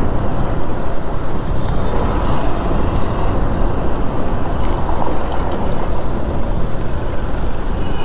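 Steady rush of wind and road noise from a motorcycle on the move.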